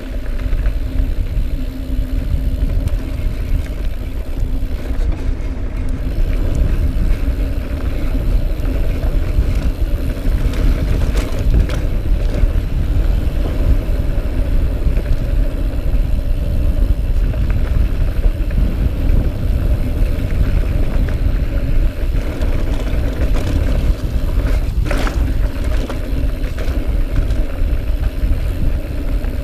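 Wind buffeting the camera microphone and tyre rumble from a 2018 Norco Range mountain bike riding fast down dirt singletrack, with a steady hum underneath. A single sharp knock near the end.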